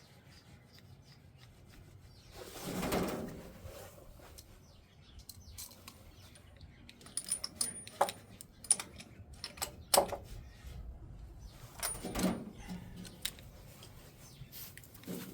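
Scattered sharp clicks and taps with soft rubbing, from hand work on a stalled tractor; the engine is not running.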